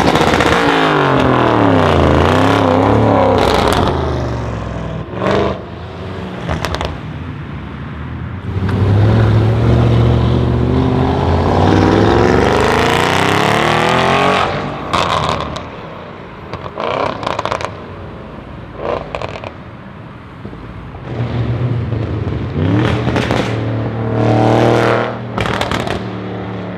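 Audi RS6 C7's 4.0 twin-turbo V8 through a decatted Milltek exhaust, accelerating hard three times with its pitch climbing. Sharp crackles and pops come from the exhaust in between as the throttle closes.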